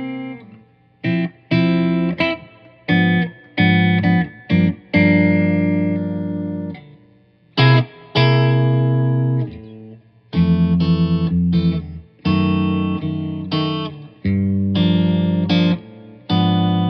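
1987 G&L SC-3 electric guitar through an amplifier, strumming chords. Short stabbed chords alternate with chords left to ring and fade out over a couple of seconds.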